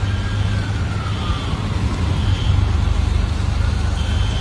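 Heavy low rumble of storm wind on the microphone, with a distant siren slowly wailing up and down.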